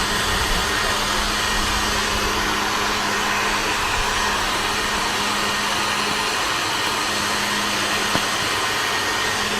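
Steady, even hiss of heavy rain, with a faint low hum underneath.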